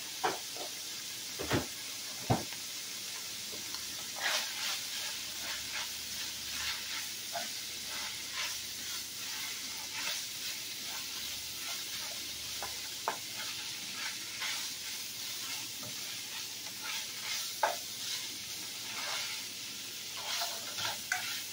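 Ground beef with sofrito sizzling as it browns in a skillet, while a utensil stirs it, scraping and clicking against the pan. There are two sharper knocks about two seconds in.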